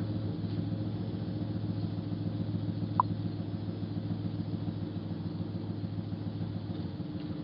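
A vehicle engine idling steadily, with a single short click about three seconds in.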